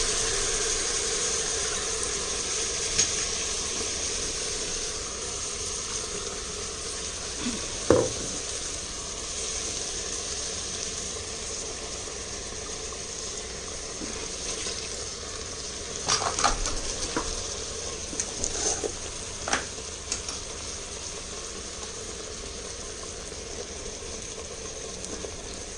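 Ground tomato and spice paste with water sizzling in the hot inner pot of an electric pressure cooker on sauté mode, the sizzle slowly dying down as the liquid settles. A spoon stirs and knocks against the pot a few times, most around the middle.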